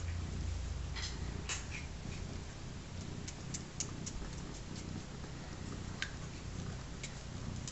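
Mother cat purring, a low steady rumble, while her newborn kittens suckle, with brief high squeaks from the kittens here and there.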